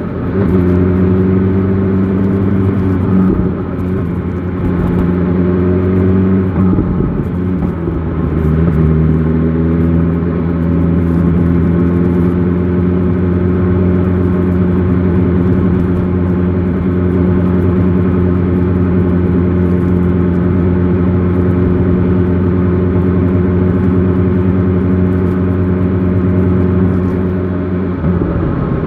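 BMW S1000 XR motorcycle's inline-four engine under way. Its pitch changes a few times in the first seven seconds or so as the rider works the throttle and gears, then it runs at a steady engine speed, with a change again near the end.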